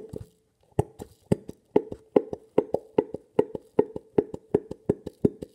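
Glue glugging out of an upturned bottle into a bowl: a rapid run of hollow plops, about four or five a second, as air bubbles back into the bottle.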